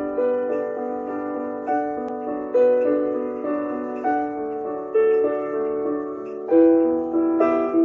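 Piano music playing back from an SD card through a miniature grand-piano-shaped music player: a slow melody of single notes and chords, each note struck and left to fade.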